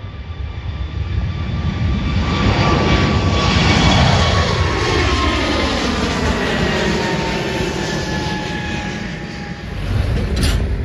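Twin-engine jet airliner taking off and climbing overhead. The turbofan noise swells to its loudest about four seconds in, with an engine whine that falls in pitch as the plane passes, then slowly fades. A short click and a low rumble come near the end.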